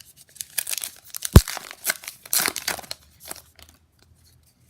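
Baseball card pack wrapper being torn open and crinkled: a quick string of rustling tears over about three seconds, with one sharp thump partway through.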